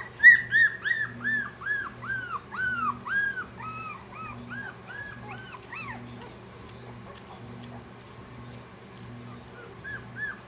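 Young Australian Shepherd puppies whining: a quick run of short, high, squeaky cries that rise and fall, about two or three a second, dying away after about six seconds and starting again near the end.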